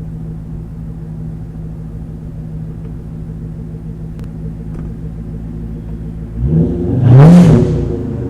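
2004 Pontiac GTO's 5.7-litre LS1 V8 idling steadily through an SLP Loudmouth II exhaust with no catalytic converters or resonators. About six and a half seconds in, one quick rev rises and falls back to idle. The owner is unsure whether the exhaust has a leak.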